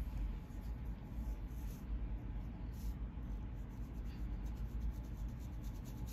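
Teeth of a fine-tooth comb scratching along the scalp in many short strokes, lifting dandruff flakes, over a steady low rumble.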